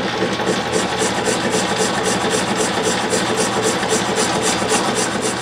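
Metal lathe turning a cast iron bar held in a steady rest, the tool taking a cleanup pass along the outside diameter. A steady motor hum under a fast, even pulsing from the spinning work.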